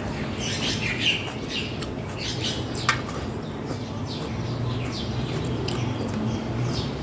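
Small birds chirping over and over in short, high, falling calls, with one sharp click about three seconds in.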